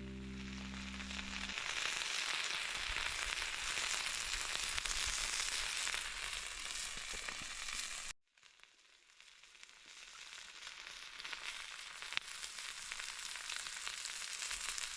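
Food sizzling as it fries in a hot wok, a steady high hiss that cuts off suddenly about eight seconds in and then builds back up.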